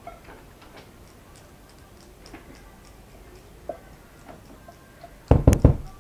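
A silicone spatula scraping thick pastry cream out of a saucepan into a glass bowl, with faint scrapes and light taps, then a quick run of several loud knocks of the utensils against the bowl about five seconds in.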